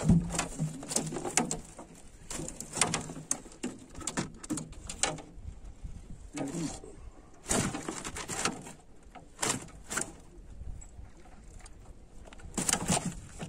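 A large curimbatá flapping in a landing net on the floor of a metal boat: irregular slaps, knocks and rattles, some in quick flurries, as it is worked out of the mesh by hand.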